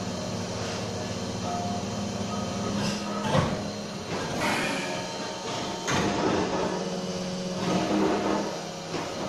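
Plastic injection molding machine running: a steady hum, with several clunks and sliding sounds about three, six and eight seconds in.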